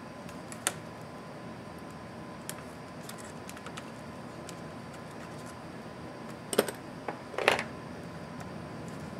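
Small sharp clicks and taps of hand tools and small plastic and metal parts as a laptop is taken apart, a few scattered early on, then a louder cluster of clicks and a short clatter about two-thirds through.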